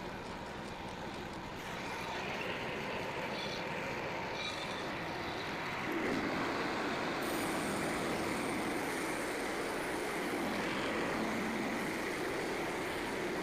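Frontier OS27 portable bandsaw mill running and sawing through a white oak log, a steady engine and blade noise that gets louder about two seconds in and again about six seconds in.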